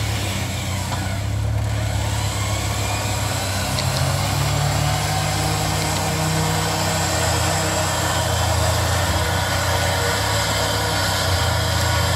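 Off-road 4x4's engine running steadily at low revs as the vehicle crawls slowly down a steep dirt descent, swelling slightly in the middle.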